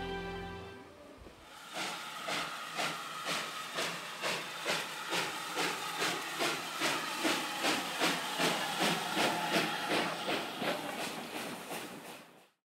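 Steam saddle-tank locomotive pulling away, chuffing steadily about twice a second over hissing steam; the sound fades out near the end.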